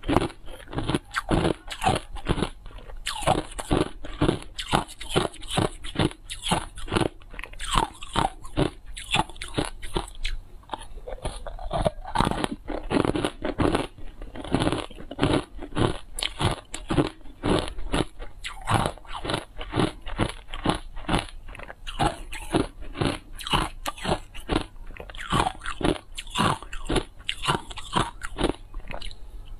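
Hard ice dusted in matcha powder being bitten and chewed close to the microphone: a continuous run of sharp crunches, a few a second.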